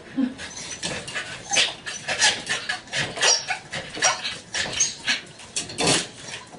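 A dog making a quick series of short cries, two or three a second.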